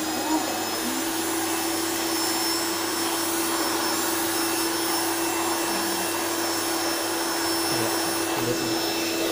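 Krisbow canister vacuum cleaner running steadily: an even motor hum with a rush of air through the hose and floor nozzle.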